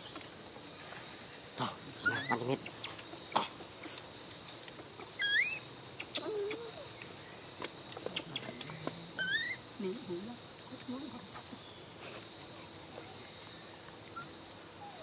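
Steady high-pitched insect chorus, with a few short rising squeaky calls and scattered clicks.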